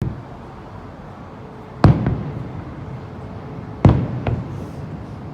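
Fireworks shells bursting: two loud booms about two seconds apart, each followed shortly by a smaller second report and a low rumbling echo.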